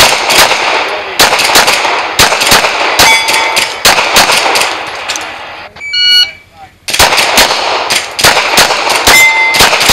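Strings of 9mm Glock 19 pistol shots fired in quick succession, about two to three a second, with a brief ringing tone after a couple of them. About six seconds in, a shot timer's electronic start beep sounds, and rapid shooting starts again about a second later.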